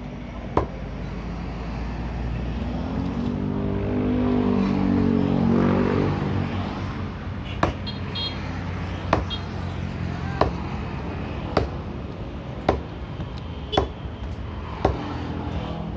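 Cleaver chopping through fish on a thick wooden block: single sharp knocks, about one a second in the second half. A motor vehicle passes in the middle, rising then falling in pitch, the loudest sound.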